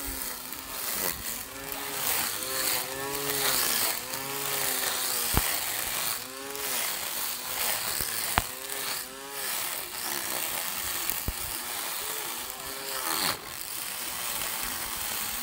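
Small electric grass trimmer whirring as it cuts grass, its pitch rising and falling again and again as it loads and frees up. A few sharp clicks sound over it.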